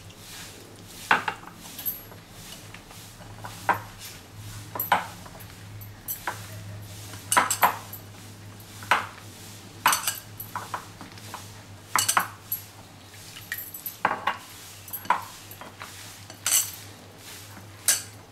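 Okra pieces being mixed by hand in a bowl with flour, spices and a little water: irregular sharp clicks and knocks, roughly one a second, as gold bangles and fingers strike the bowl, over a steady low hum.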